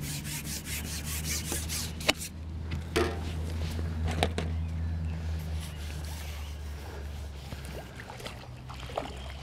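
Carbon fishing pole being handled while a hooked carp is played: rubbing and a few sharp clicks and knocks about two, three and four seconds in, over a low steady rumble. Faint water disturbance from the fish near the end.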